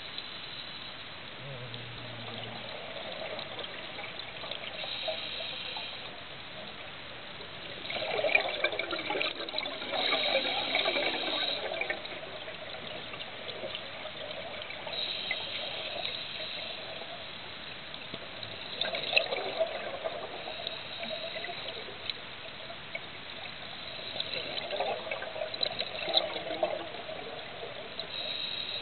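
Underwater sound of a scuba diver breathing through a regulator, with several bursts of exhaled bubbles a few seconds apart over a steady hiss.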